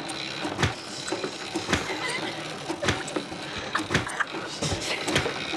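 Tennis balls fired from a ball launcher striking a plastic face shield: a run of sharp thuds, about one every half second to a second.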